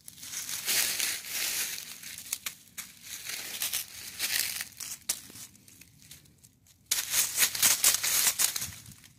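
Dry fallen leaves crunching and rustling in irregular bursts as they are stirred and pawed through by a tabby cat. There is a lull a little past halfway, then louder crackling near the end.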